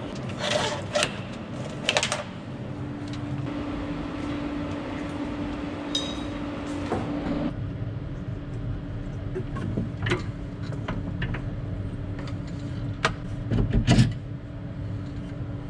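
Hands unplugging and removing monitors and their mounting brackets inside a tractor cab: scattered clicks, knocks and rattles of plastic and metal, the loudest near the end, over a steady low hum that comes in about three seconds in.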